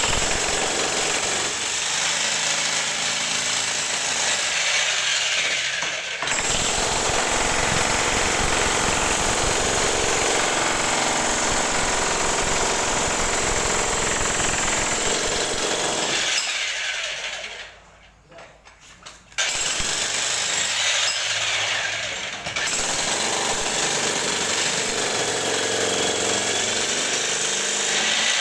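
Jackhammer hammering steadily with a rapid, continuous chatter while breaking up ceramic floor tile and its hard mortar bed. It stops for about a second and a half about two-thirds of the way through, then starts again.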